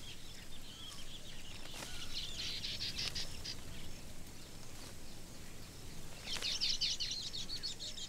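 Baya weavers chattering: two spells of rapid, high chirping, one about two seconds in and another past six seconds, over faint outdoor background noise.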